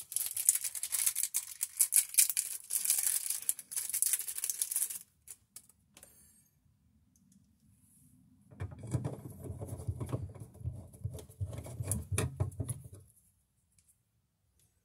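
Plastic wall cover plate on a GFCI receptacle clicking and scraping as it is handled and seated. After a pause, a hand screwdriver grinds and clicks for about four seconds as it drives the plate's mounting screw.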